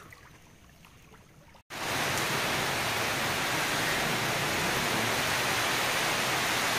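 Steady, even hiss of water that cuts in abruptly about two seconds in; before it, only a faint background.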